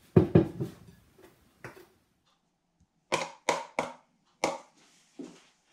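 Sharp knocks and taps of a utensil against a mixing bowl as baking margarine is scraped into the dry ingredients. A loud cluster comes first, then after a short pause five separate knocks over the last few seconds.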